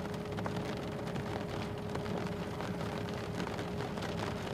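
Light rain tapping on a vehicle's windshield, heard from inside the cabin over a steady low rumble and a constant hum.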